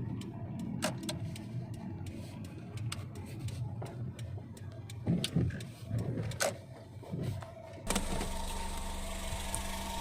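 Car on the move with a low road rumble and scattered clicks and knocks; about eight seconds in the rumble gives way to the steady hum of the engine idling.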